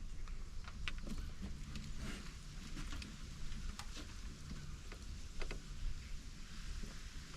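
Water lapping against a small boat's hull, a steady low rumble, with scattered light taps and clicks.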